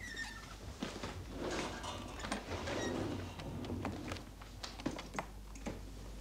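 Someone rummaging at a desk: irregular clicks and knocks of objects being handled and moved, with rustling about a second and a half in.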